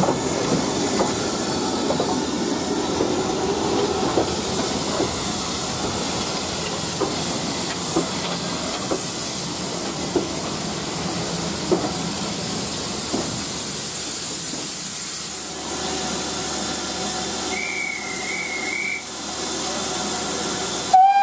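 Steam locomotive hissing steadily, with a few scattered knocks in the first half. A steam whistle begins to sound right at the end.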